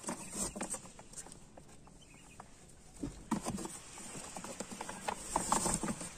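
Quails scrabbling and pattering inside a cardboard box, their feet scratching on the cardboard, with rustling as the box is handled; busiest in two bursts about three and five and a half seconds in.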